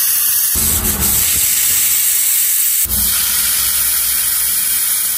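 Aluminium pressure cooker on a gas stove venting steam through its whistle weight in a loud, steady hiss: the cooker has come up to pressure and is whistling as the mutton cooks.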